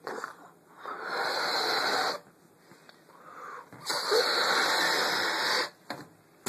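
A person blowing up a rubber balloon: two long breaths pushed into it, the first a bit over a second long and the second nearly two seconds.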